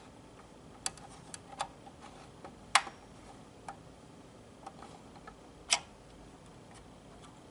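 Irregular light clicks and taps, about eight over several seconds, the loudest two near three seconds in and near six seconds in: hands working on a fire alarm pull station. No alarm is sounding.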